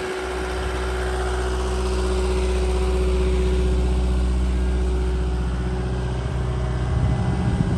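Cat 259D compact track loader's diesel engine idling steadily, with a steady tone over the low engine hum.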